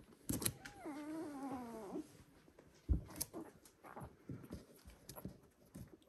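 One-week-old Border Collie puppy crying: one long wavering whine about a second in, among short squeaks and light clicks, with a single thump around three seconds in.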